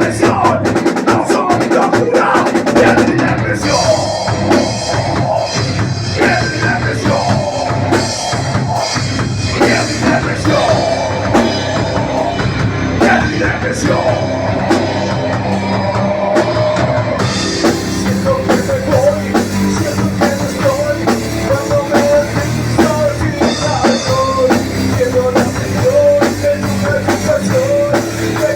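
Nu-metal band rehearsing a heavy instrumental passage with a pounding drum kit and distorted electric guitars, recorded through a mobile phone's microphone.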